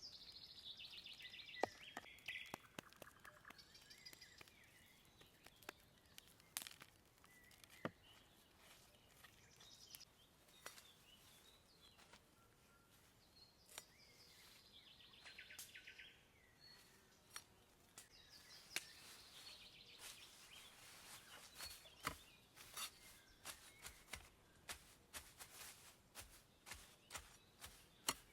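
A songbird sings short falling trills, three phrases a few seconds apart, among scattered sharp small clicks and taps.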